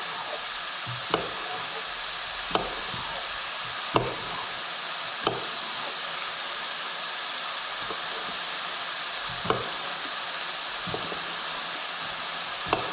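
Mushrooms frying in a pan with a steady sizzle. A utensil knocks against the pan about six times at irregular intervals as they are stirred.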